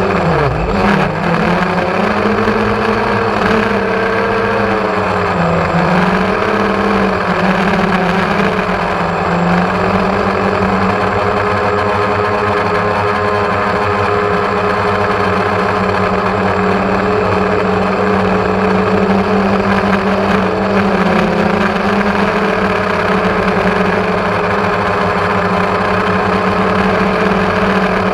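Drone motors and propellers humming, as heard from the GoPro on the aircraft. The pitch drops sharply about a second in and wavers with the throttle for several seconds, then holds steady.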